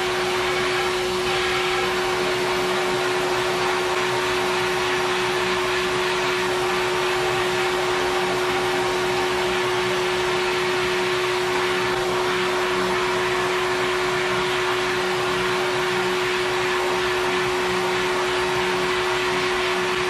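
Glass bead sandblast cabinet running, a steady hiss of the blast nozzle over a constant hum, as it blasts loose, flaking material off a tractor three-point-hitch top link tube.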